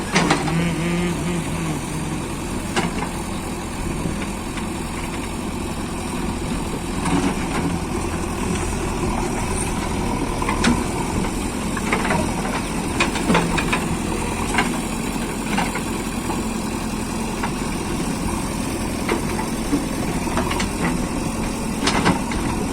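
A JCB 3DX backhoe loader's diesel engine running steadily, with occasional sharp knocks scattered through.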